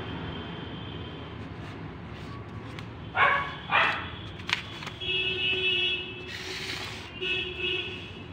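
A dog barks twice, loudly, about half a second apart. A held pitched sound follows for about a second and comes again more briefly near the end, all over a steady low background hum.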